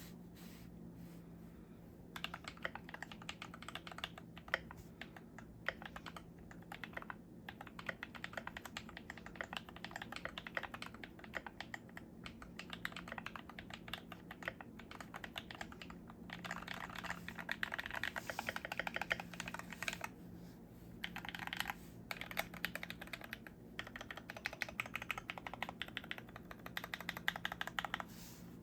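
Fast typing on a Glorious GMMK Pro mechanical keyboard with a brass switch plate, lubed Panda tactile switches and PBT keycaps: dense runs of keystroke clacks that start about two seconds in, broken by a few short pauses.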